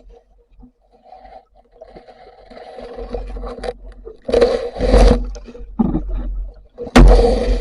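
Muffled water splashing and scraping in irregular surges that build from near silence, the loudest about four and a half seconds in and again near the end.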